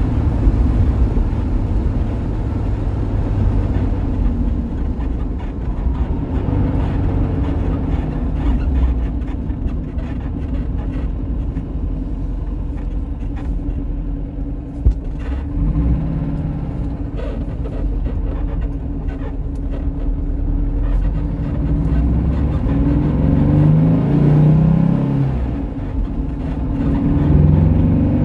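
A 1965 Porsche 912's air-cooled 1.6-litre flat-four engine pulling the car along, heard from inside the cabin with road noise. There is a single knock about halfway through, and the revs climb through the last several seconds.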